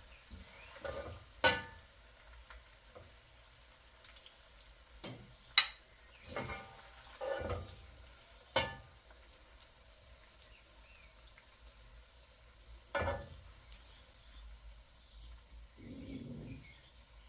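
Kitchenware being handled: about eight separate knocks and clinks, each ringing briefly, with a softer rustle near the end.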